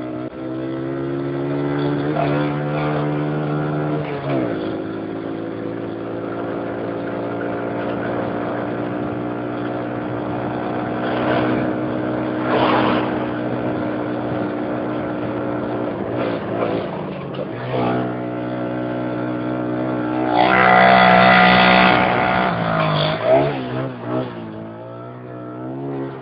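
ATV engine running as the quad is ridden along a dirt trail, heard close from the rider's seat, its pitch rising and falling with the throttle. It drops back about four seconds in, holds steady for a long stretch, then revs up to its highest and loudest about twenty seconds in before easing off near the end.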